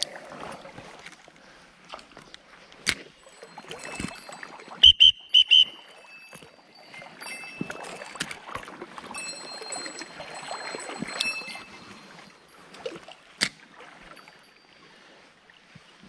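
Water sloshing and splashing as an angler wades and fishes a shallow river, with scattered clicks and three short, sharp, loud sounds about five seconds in.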